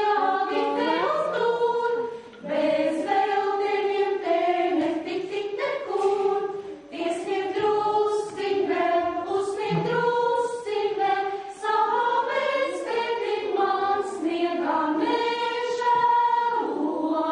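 A group of mostly women's voices singing a song together in one melody line, phrase after phrase with short breaths between.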